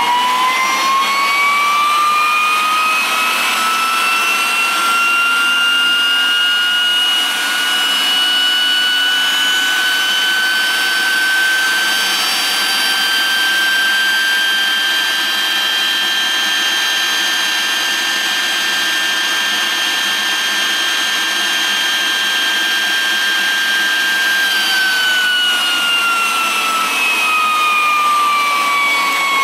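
Electric starter motor spinning up a Rolls-Royce Artouste gas turbine, a loud whine rising in pitch over about ten seconds as the spool speeds up, then holding steady. About 24 seconds in the pitch falls away as the starter panel switches the starter off and the turbine runs down.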